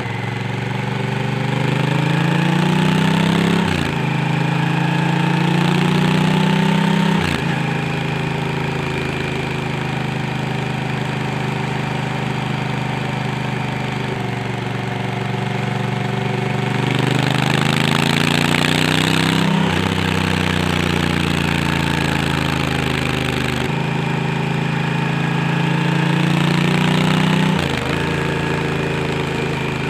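Honda Africa Twin parallel-twin engine and exhaust under way: the note climbs as the bike accelerates and drops sharply at each of four gear changes, with steadier cruising stretches between. A rush of wind noise swells for a couple of seconds past the middle.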